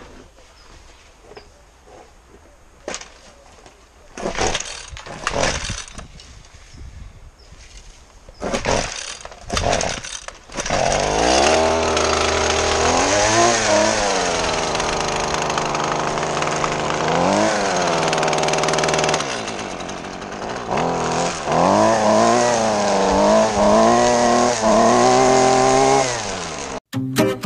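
Jonsered petrol string trimmer: some knocks and handling noise, then the engine starts about eleven seconds in and runs, revved up and let back down several times.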